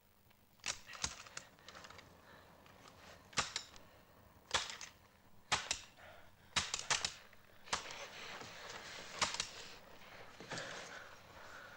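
Scattered rifle fire: about a dozen sharp shots at irregular intervals, some coming in quick pairs and triplets.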